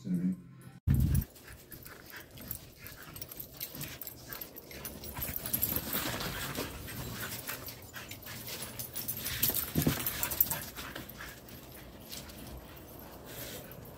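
Dogs at play: a short dog whine at the start, a loud bump about a second in, then dogs running and panting on snow amid scattered crackles, busiest around the middle and again near ten seconds in.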